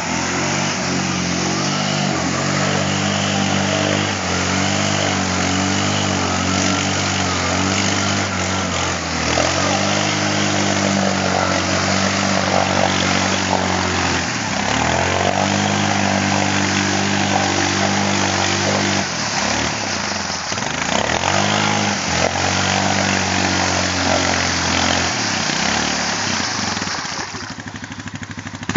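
2006 Yamaha Kodiak 450 ATV's single-cylinder engine running under heavy load while its tyres churn in deep, sticky mud as the quad sits bogged down. The revs sag and pick up again several times, and the engine eases off near the end.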